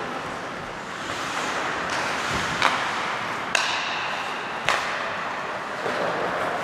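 Ice hockey play in an ice hall: sharp clacks of sticks and puck about two and a half, three and a half and four and a half seconds in, the middle one ringing briefly, over a steady hiss of hall noise.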